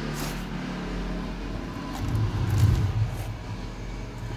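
Low steady motor hum that swells into a louder rumble about two seconds in.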